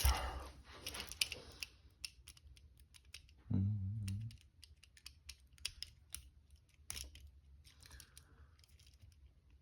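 Scattered light metal clicks and ticks of steel handcuffs and a lock pick being handled as he starts working the pick into the cuffs. A short low hum comes about three and a half seconds in.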